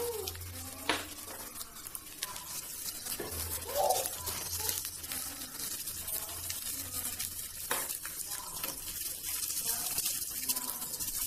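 Sliced onions sizzling in hot oil in a pan on a gas stove, with small pops, while a spatula stirs and scrapes them.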